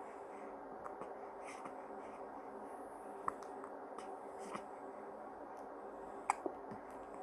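Newborn baby hiccupping: a few short, soft hiccups a couple of seconds apart, over a faint steady hum.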